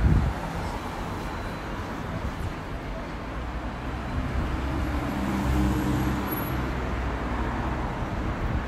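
City street traffic noise, with a motor vehicle's engine hum swelling as it passes close about halfway through. There is a brief low thump right at the start.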